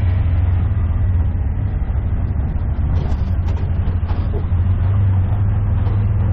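Three-wheeled auto-rickshaw engine running with a steady low drone while driving, heard from inside the open passenger cab along with road noise. A few light clicks come near the middle.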